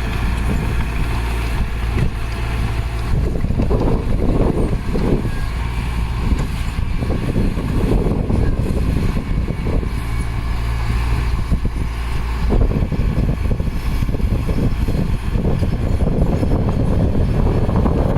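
Heavy diesel earthmoving machinery running, a steady low engine drone with irregular louder noisy surges on top.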